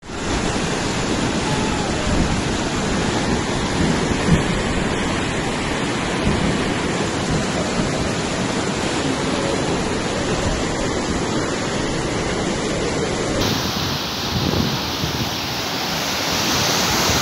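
Floodwater rushing down a street as a fast, muddy torrent: a loud, steady wash of water noise, turning brighter and hissier about three-quarters of the way through.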